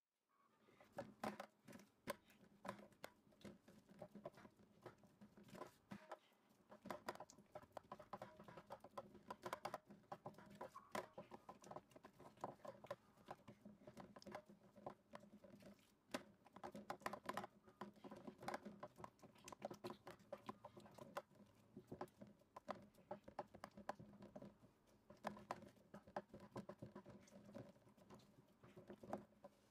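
Fingertips pressing and patting soft yeast dough out across a round aluminium baking tray: a quick, uneven run of soft pats and taps, several a second, with a couple of brief pauses.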